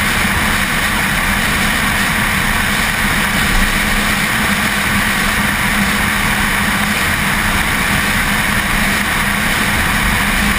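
Car driving at speed: a steady rush of wind and road noise with the even drone of its engine, picked up by a camera mounted on the outside of the car's tail, with no gear changes or revving.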